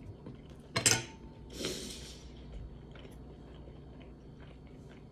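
A person chewing a mouthful of French toast and sautéed apples, with soft mouth noises. About a second in there is a single sharp clink with a short ring, like a fork set down on a china plate, followed by a brief rushing noise.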